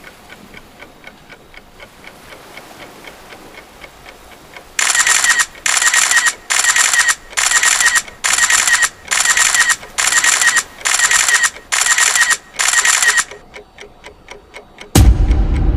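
A clock ticking, then ten loud alarm bursts in an even rhythm, under a second apart, after which the ticking carries on. Near the end a loud, full sound cuts in suddenly.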